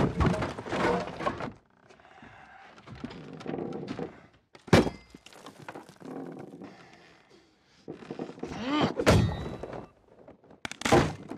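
Heavy crashing thuds at the start, then quieter scraping and a few sharp knocks, about five seconds in, nine seconds in and near the end.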